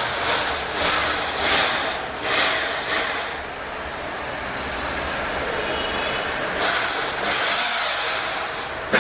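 Pipe cutting and bevelling machine running, its cutter scraping through metal: uneven surges of scraping for the first three seconds, then a steadier hiss carrying a thin, high squeal.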